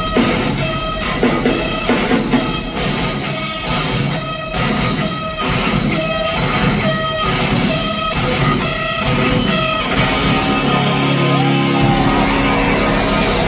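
Live metalcore band playing loud, with distorted electric guitars and a drum kit hitting in a steady pounding rhythm. About ten seconds in the drums stop and held guitar notes ring on.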